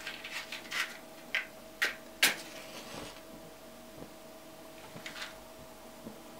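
A wooden match struck on the side of a matchbox: a few short scrapes, the loudest about two seconds in, followed by a brief hiss as it flares. A few faint ticks follow.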